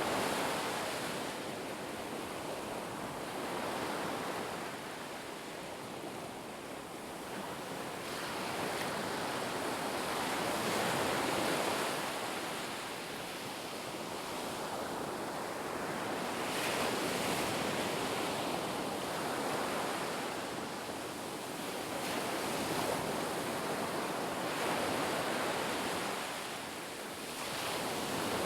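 Ocean waves breaking and washing on a shore, a continuous surf that swells and eases every few seconds.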